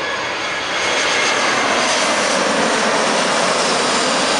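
Airbus A321-200 jet airliner on landing approach passing low overhead with its gear down: loud, steady jet engine noise with a faint whine, swelling about a second in as it comes over.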